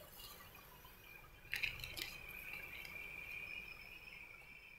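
Faint, steady, high-pitched insect drone, a single held tone that sets in about a second and a half in, just after a couple of sharp clicks.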